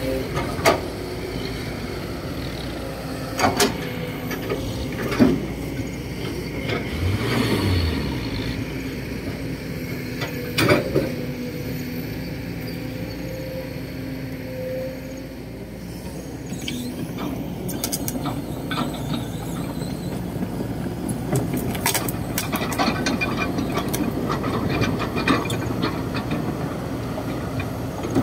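Diesel engines of a Kobelco SK200-8 excavator and a dump truck running steadily, with sharp metallic clanks a few times early on the steady hum and a denser run of clanking and rattling in the second half.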